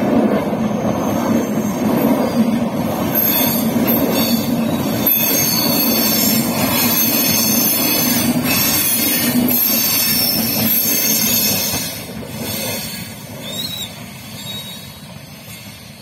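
Express passenger train coaches rushing past at speed without stopping: a loud rumble of wheels on rail with a high metallic squeal and clatter. After about twelve seconds, as the last coaches go by, the sound dies away steadily.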